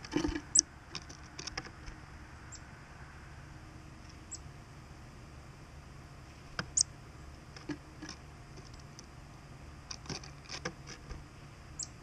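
Black-capped chickadee at a wooden tray feeder of sunflower seeds: sharp clicks and taps as it lands and moves on the tray and among the seeds, loudest about a second in and again near the end. A few very short, high chirps are scattered through it.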